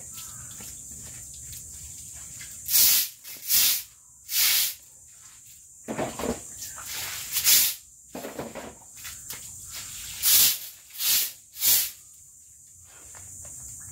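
Stick broom swishing over a wet concrete floor: about nine loud, irregular sweeping strokes with short gaps between.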